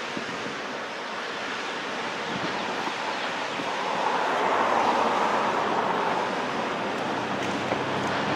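Steady rushing noise of a freight train's cars rolling over curved track, mixed with wind on the microphone, swelling about halfway through.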